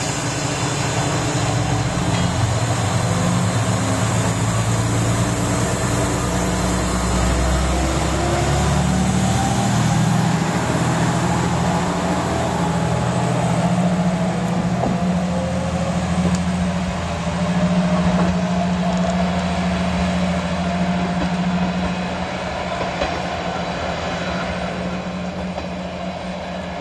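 Diesel engine of a single-car KiHa 120 railcar pulling away and accelerating, with a whine that rises in pitch. The sound fades near the end as the railcar moves off.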